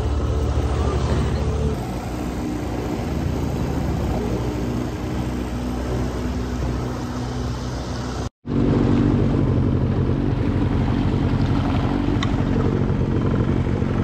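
Boat motor running steadily underway, with rushing wind and water noise. The sound cuts out for a split second about eight seconds in, then the motor hum resumes slightly louder.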